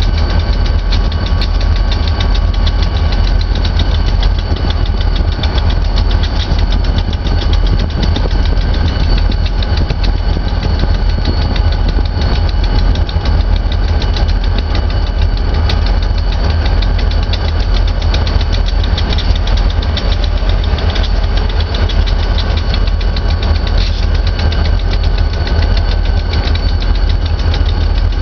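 An engine idling steadily, with a deep low rumble and a fast, even pulse that does not rise or fall.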